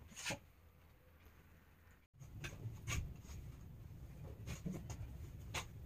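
Faint indoor handling noise: a single light click, then after about two seconds a low rumble with scattered soft clicks and knocks as a person moves about the room.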